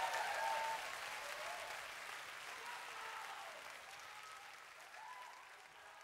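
Concert audience applauding, the applause dying away steadily.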